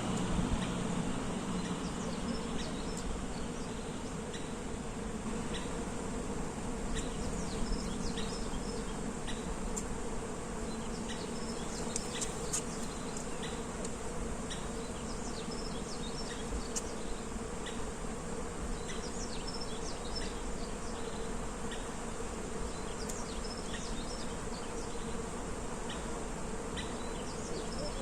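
Bees buzzing among cherry blossoms in a steady hum, with scattered short high chirps of small birds over it.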